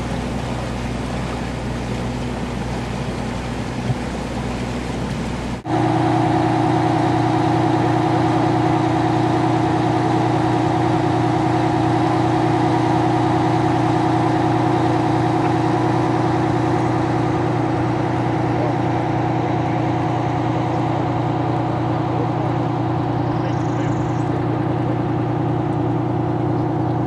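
An engine running while pushing a bow wave through floodwater, over a rushing wash of water. After a sudden cut about six seconds in, an engine hum holds a steady, unchanging pitch, like idling.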